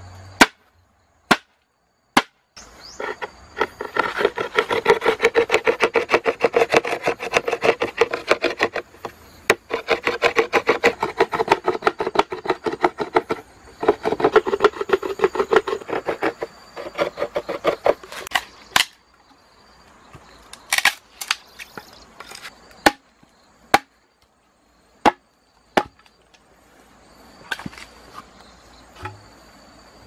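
A rapid run of short knocking or scraping strokes, many per second, going in two long spells with a short break between, then giving way to scattered single sharp knocks and clicks. A faint, steady high whine sits underneath.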